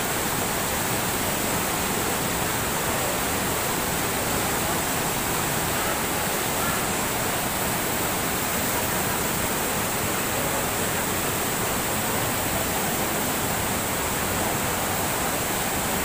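Waterfall pouring over boulders into a plunge pool: a steady rush of falling water.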